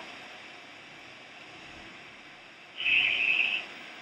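Steady hiss of an open air-to-ground radio channel, with a short crackling burst of radio static lasting under a second about three seconds in.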